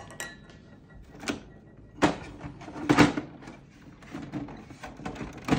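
Plastic housing of an HP Smart Tank 515 printer being closed and pressed back into place by hand: a series of separate plastic knocks and clicks, the loudest about three seconds in.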